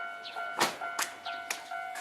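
Japanese level-crossing warning bell ringing: an electronic two-tone chime repeating about twice a second. Several sharp clacks sound over it around the middle, the loudest about half a second in.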